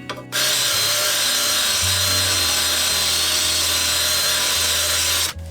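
Drill-powered sharpening stone grinding along the cutting edge of a steel lawnmower blade, a loud, even grinding with a steady high whine that starts just after the beginning and cuts off sharply near the end.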